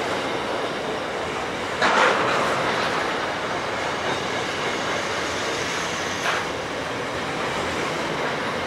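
Freight train wagons rolling past: a steady rumble and clatter of steel wheels on the rails, with a brief louder burst about two seconds in and a smaller one about six seconds in.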